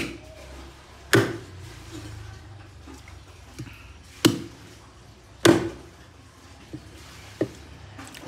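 Cleaver chopping raw meat on a thick wooden chopping board: four loud chops spaced unevenly, with three lighter knocks of the blade between and after them.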